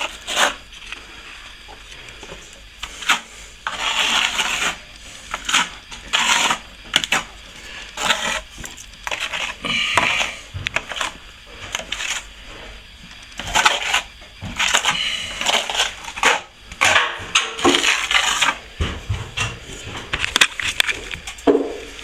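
Plasterer's trowel spreading and scraping wet white set finish plaster, in irregular strokes with sharp metallic clinks.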